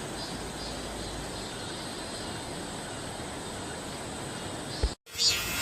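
Steady outdoor background hiss with a faint high chirp repeating about twice a second, ending in a click and a sudden cut about five seconds in.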